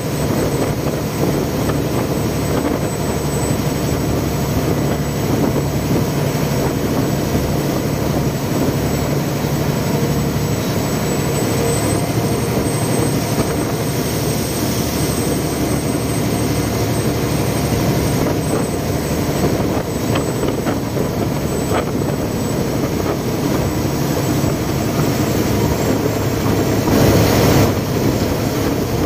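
Canal express boat's diesel engine running steadily at speed, with water rushing along the hull and wind on the microphone. A brief louder rush comes near the end.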